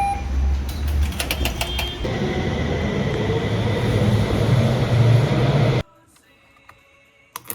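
Steady low rumble of a moving vehicle heard from inside, with a few clicks about a second in; it cuts off suddenly near the end, leaving a much quieter room with faint ticks.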